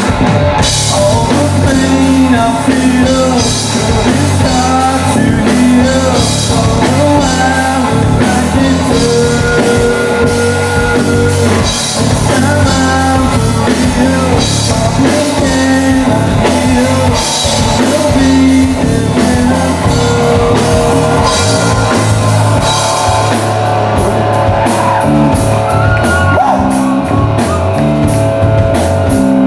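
Live rock band playing a song: singing over electric guitar and drum kit.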